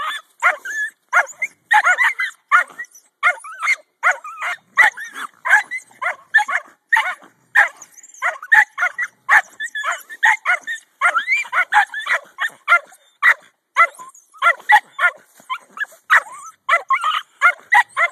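Jack Russell terriers barking and yipping in rapid, nearly continuous bursts, a few each second, as they dig at a raccoon holed up in a stump hole.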